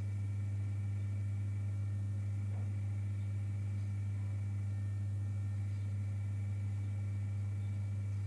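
Steady low electrical hum with fainter higher overtones, unchanging throughout.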